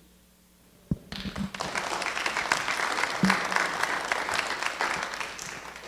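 Congregation applauding. The applause starts about a second in, holds steady, then fades near the end.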